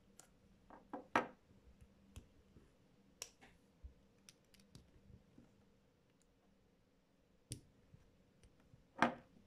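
Plastic Lego bricks clicking as pieces are handled and pressed together by hand, in scattered sharp clicks. The loudest snaps come about a second in and near the end, with a quieter stretch in between.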